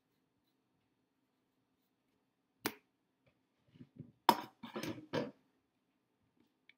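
Sharp clacks of a measuring cup and bowl being handled in a kitchen sink: a single click a little over two and a half seconds in, then a quick run of four or five clacks between about four and five seconds in. A faint low hum runs underneath.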